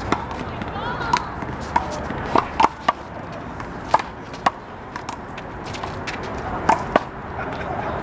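Rubber handball (the big blue ball) being slapped by hand and smacking off a concrete wall during a one-wall doubles rally. About a dozen sharp smacks come at uneven intervals, some in quick pairs, with a lull a little past the middle.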